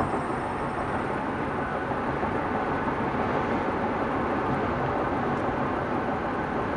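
Steady road and wind noise inside the cab of a 2003 Chevrolet Silverado converted to a Baldor AC induction motor, cruising at about 65 mph on the highway.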